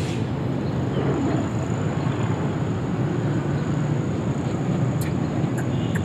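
Steady low outdoor rumble with a thin high whine running through it.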